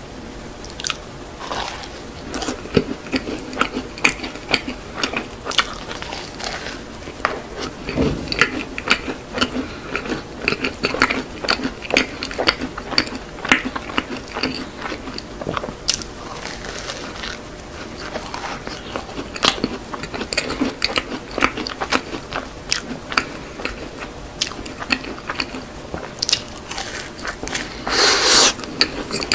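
Close-miked eating of a shell-shaped macaron topped with yogurt cream and crunchy fruit-ring cereal: bites and chewing with many small, irregular crunches and crackles. A longer, louder crunch comes near the end.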